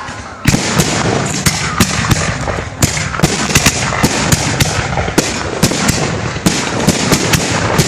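Fireworks display: aerial shells bursting in a quick, irregular string of sharp bangs, several a second, over a continuous loud rumble and hiss. A short lull comes just before the first half-second, then the bangs resume.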